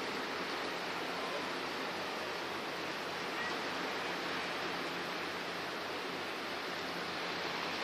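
Steady, even rushing outdoor noise with no distinct events, and one faint brief chirp about three and a half seconds in.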